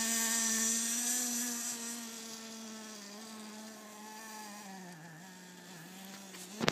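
Redcat Tornado S30 1/10-scale nitro buggy's small glow engine running at a steady high pitch, fading as the buggy drives away, with a couple of slight dips in pitch near the end. A sharp click at the very end.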